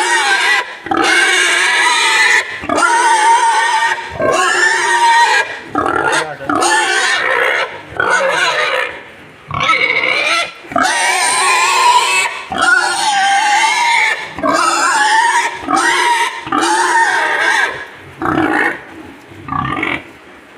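Boar vocalizing in a long series of pitched, wavering grunting and squealing calls, each a second or two long with short breaks between.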